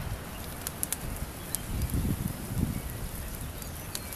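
Wood fire burning: a low rumble of flames that swells about two seconds in, with scattered sharp crackles and pops from the burning logs.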